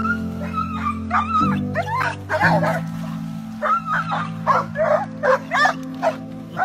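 Excited dogs whining and then barking and yipping in a quick series from about two and a half seconds in, over background music with held notes.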